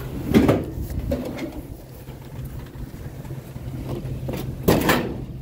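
Vehicle engine idling steadily, with two loud clunks of treadmill pieces being handled and loaded, about half a second in and again near the end.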